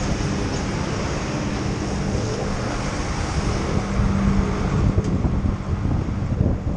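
Wind buffeting a helmet-mounted camera's microphone while riding along a city street, over traffic noise and a steady engine hum that fades near the end.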